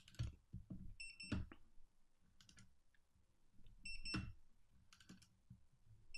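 Torque analyzer beeping as it captures a peak reading each time a cam-over torque wrench is pulled on its transducer and slips, with a click at each pull. Three short beeps, about a second in, about four seconds in and at the very end, and lighter clicks between them, during test pulls of a calibration.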